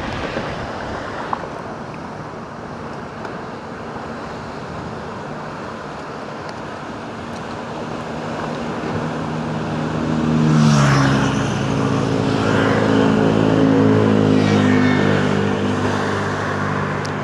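Even wash of surf and wind noise, then a car engine comes in about nine seconds in, rising in pitch briefly and then running steadily.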